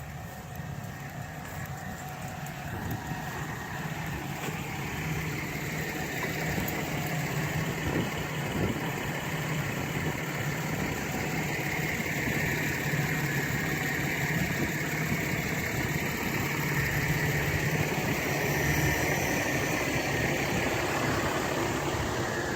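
An engine running steadily, growing gradually louder as it draws nearer.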